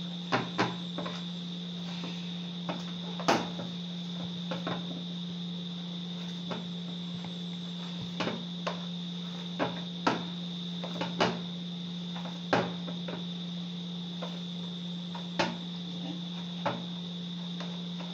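Hands kneading and pressing corn dumpling dough in a bowl: irregular soft knocks and slaps, a few seconds apart. A steady low hum and a continuous high-pitched whine run underneath.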